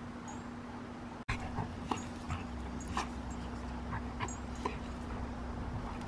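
Dog whimpering: a string of short, faint squeaks spread over a few seconds.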